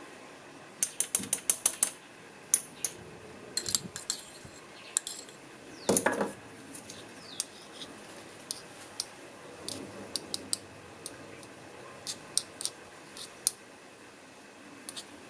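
A metal spoon clinking and scraping against a small aluminium screw-top tin as thick cream is scraped off into it: a quick run of light clicks about a second in and a louder knock around the middle, then scattered ticks as the tin is handled.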